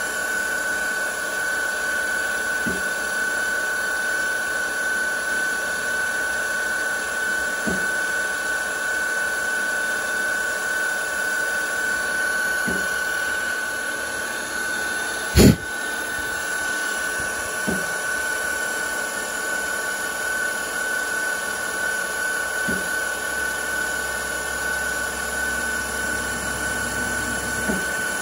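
Little Machine Shop #6500 CNC mill running steadily with a high steady whine as its end mill cuts aluminium plate. A faint knock comes about every five seconds, and one sharp, loud click about halfway through.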